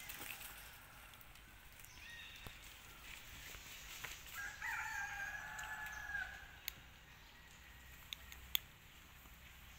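A faint rooster crowing once near the middle, a single held call of about a second and a half. A few light sharp clicks follow.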